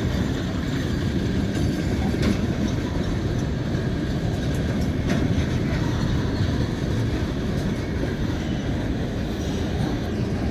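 Freight train cars rolling past with a steady low rumble of steel wheels on rail, broken by a few sharp clicks.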